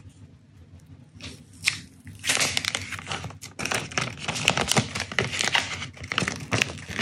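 Thin clear plastic protective film crinkling and crackling as it is peeled off a new smartphone. It starts about two seconds in and goes on in quick irregular crackles.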